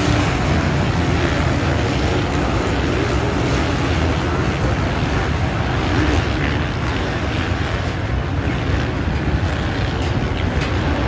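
A pack of motocross bikes racing around a dirt track, their engines blending into a steady, loud din.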